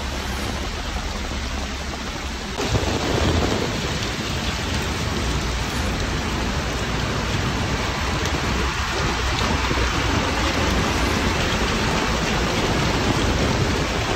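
Heavy rain and floodwater rushing through a street, a dense, steady wash of water noise with a low rumble underneath. It steps up abruptly in loudness about two and a half seconds in.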